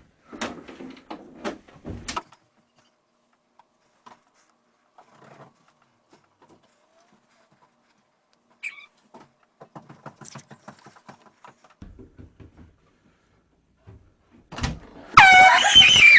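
A handheld air horn blasts loudly for about a second near the end, sprung as a prank. Before it come only scattered quiet knocks and shuffling.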